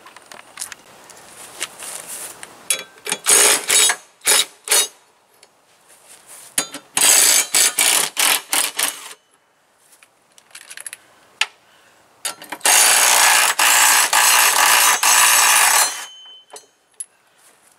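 Cordless impact wrench hammering the mower-deck blade nuts loose: a few short trigger bursts, then two longer runs of about two and three and a half seconds.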